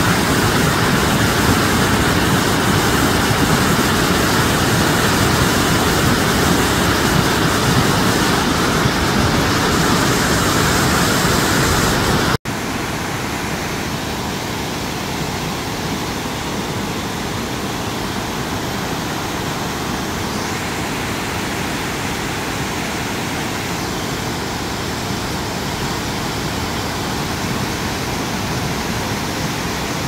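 Willow Falls, a cascading waterfall tumbling over rock ledges, rushing steadily. The sound cuts out for an instant about twelve seconds in and resumes a little quieter.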